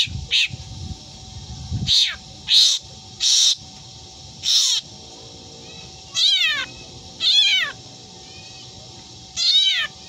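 Caged black drongo mimicking a cat's meow: about eight separate calls, the last three longer and falling in pitch like a meow.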